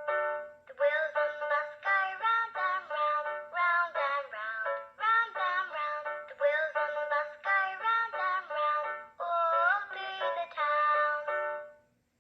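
Ditty Bird children's button sound book playing a short sung children's song through its small built-in speaker, a melody of sung notes that stops sharply near the end, with a faint steady hum underneath.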